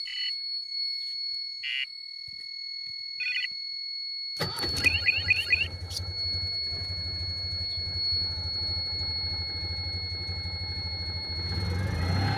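A steady high electronic whine with three short beeps, then about four seconds in the Citroën 2CV's air-cooled flat-twin engine is briefly cranked and catches, settling into a steady idle.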